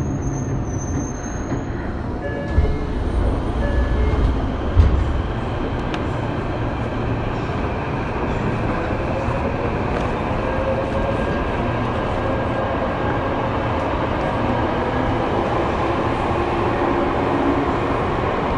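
Tokyo Metro 03 series chopper-control motor car running, heard on board: a steady rumble of wheels and traction equipment, with two thumps in the first five seconds and a faint whine slowly rising in pitch in the second half.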